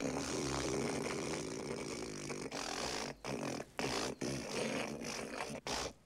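A man loudly hawking up phlegm from the back of his throat, gathering a big gob of mucus to spit, in several long throaty pulls with short breaks between them.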